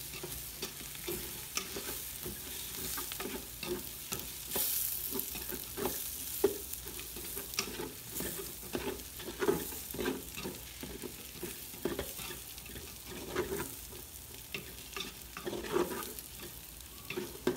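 A wooden spatula stirring and scraping in an aluminium pot, in irregular strokes, through sliced onions and potatoes frying in oil, over a steady sizzle. The tomato paste is being mixed into the fried onion, potato and spice base.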